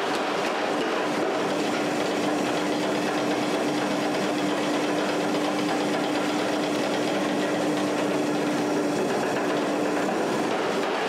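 Power hammer running and striking a red-hot steel bar in rapid, continuous blows, drawing the neck section out round. A steady hum runs through most of it.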